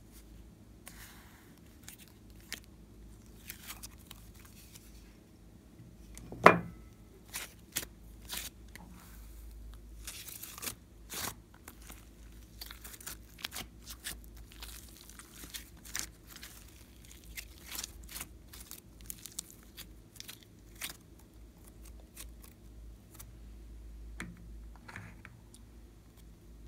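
Glossy slime being pressed, stretched and folded by hand, giving many short sticky clicks and air-pocket pops, with one much louder pop about six seconds in.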